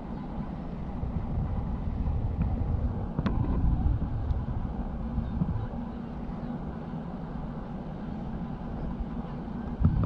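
Wind buffeting the action camera's microphone as a ragged, uneven rumble, with one sharp click about three seconds in.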